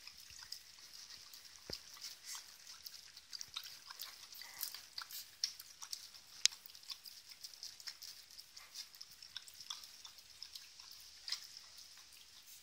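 Nine-day-old puppies suckling at their mother's teats: a faint, irregular scatter of small wet smacking and clicking sounds over a steady high hiss.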